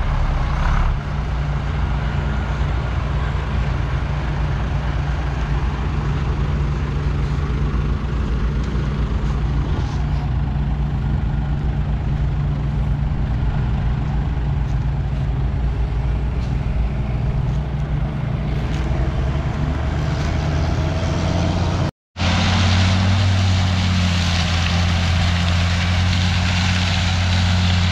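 Heavy diesel engines running steadily: a loaded sugarcane truck and a sugarcane harvester working in the field. About three-quarters of the way through the sound drops out for an instant, and after that the low engine drone is louder.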